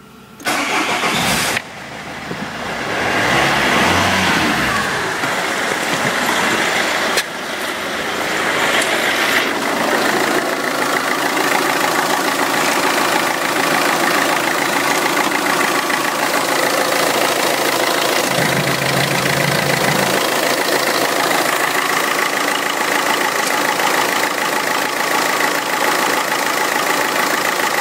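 Citroën Xantia 2.0 HDi (RHZ) four-cylinder common-rail turbodiesel cranked on the starter for about a second, then catching. It settles into a steady diesel idle.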